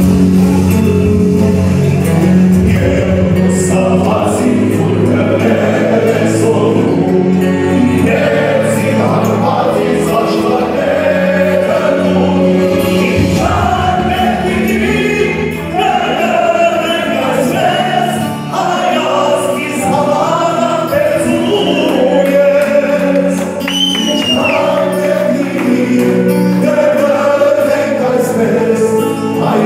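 Live amplified male singing into a microphone over electronic keyboard accompaniment, with a group of men singing along.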